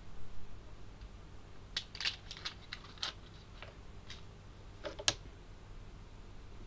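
A small metal watercolour tin being handled and its paper wrapping peeled off: a run of light crinkles and clicks about two to three seconds in, then one sharp click about five seconds in.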